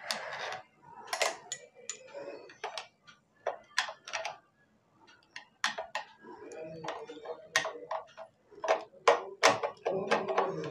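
Screwdriver working screws loose on a sewing machine's metal body beside the shuttle: a run of irregular metallic clicks and ticks, with a few longer scraping stretches in the second half.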